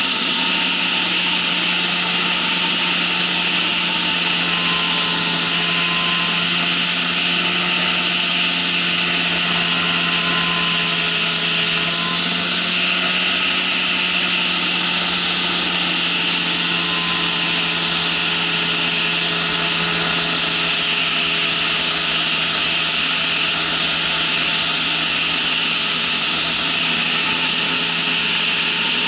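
Ultralight trike's engine and propeller running steadily in cruise, a constant drone with a low hum, under a heavy rush of wind over the microphone.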